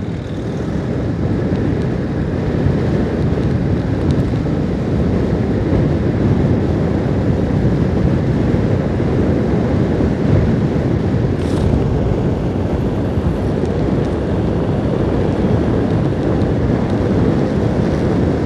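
Steady low wind rush over the microphone of a motorcycle riding at road speed, mixed with the bike's engine and road noise.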